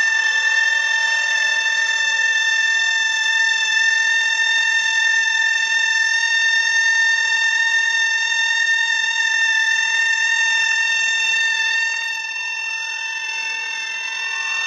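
A continuous, steady high-pitched tone with overtones, alarm-like, held without a break; it drops a little in loudness about twelve seconds in.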